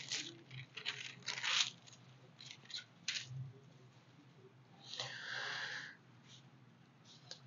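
Faint paper rustling from Bible pages being turned to look up a verse. There are a few short rustles in the first couple of seconds and another longer, soft rustle about five seconds in.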